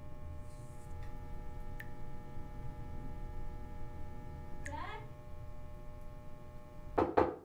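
A man sobbing over a steady hum of several held tones, with faint ticks about once a second. A short falling sob comes about five seconds in, and a loud sobbing outburst near the end.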